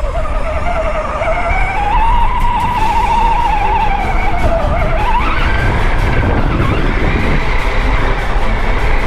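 Axial Bomber RR10 RC crawler's brushed 35-turn electric motor and geartrain whining, the pitch rising and falling with the throttle, over a low rumble from the chassis on rough ground.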